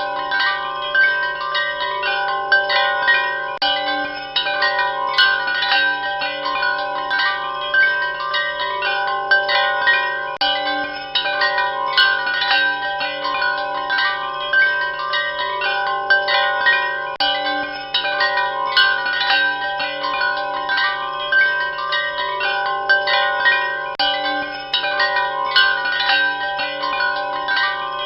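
Wind chimes ringing continuously, many overlapping metallic tones struck in quick, irregular succession over a steady low hum.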